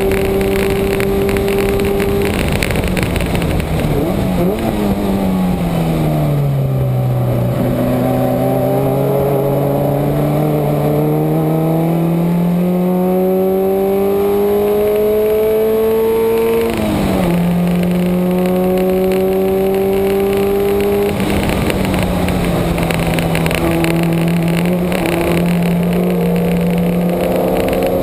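Subaru's flat-four engine running hard on a race track, with wind rush. The revs fall off over a few seconds, then climb steadily for about eight seconds. They drop sharply at an upshift and then hold fairly steady with small dips.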